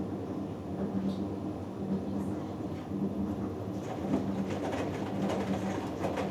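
Hoover Dynamic Next front-loading washing machine tumbling a cotton load: the drum motor hums and the wet laundry turns over in the drum. A bit over halfway in, the sloshing gets louder and splashier.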